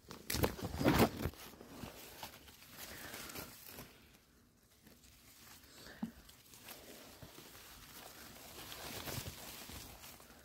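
Raspberry leaves and canes rustling and brushing against the hands and phone as berries are picked, with a louder burst of handling noise about a second in.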